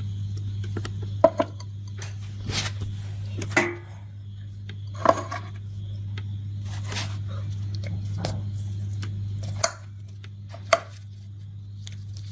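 Metal kitchenware being handled: about eight scattered clinks and knocks over a steady low hum.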